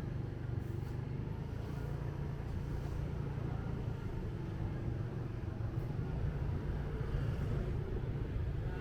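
Motorbike engine running steadily under way, a continuous low rumble with street traffic noise around it.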